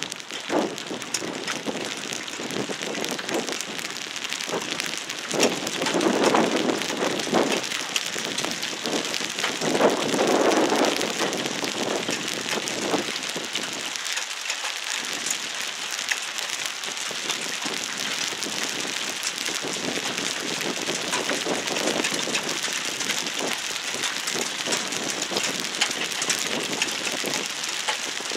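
Steady rain falling, heard as an even hiss, with two louder, deeper swells about six and ten seconds in.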